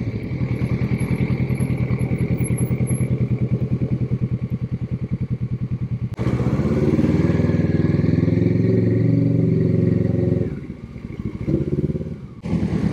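Sport motorcycle engine idling with an even, regular pulse, then running steadier and fuller under way. The engine sound drops away about ten and a half seconds in and briefly picks up again near the end.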